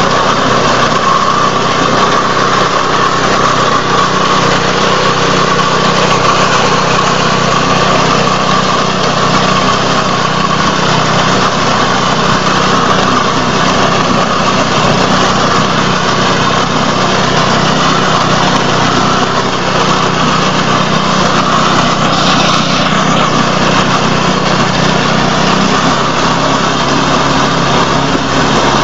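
Engine of a small wheat and rice reaper machine running steadily, its tone shifting slightly a few seconds before the end.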